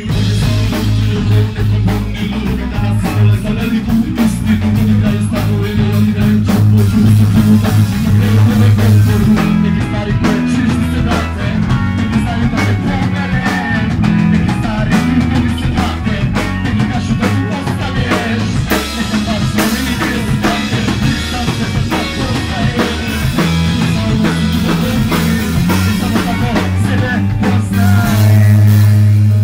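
Live band playing loud: electric bass, drum kit and a singer on a microphone. A held low bass note swells to the loudest point near the end.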